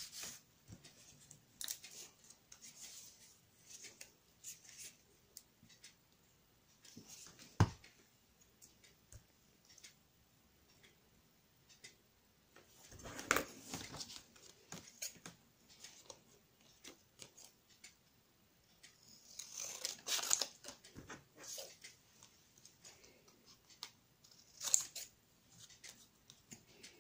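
Scissors snipping card paper and paper being handled: scattered small snips, rustles and taps, with longer rustling stretches around the middle and about three-quarters through. A single sharp tap stands out nearly a third of the way in.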